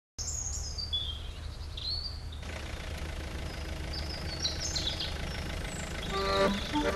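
Birds chirping over the low, steady running of a tractor engine, as a sound effect. A tune begins near the end.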